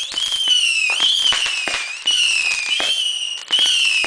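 Whistling fireworks, one shrill high-pitched whistle after another, each lasting about a second and sagging slightly in pitch, mixed with sharp crackling pops.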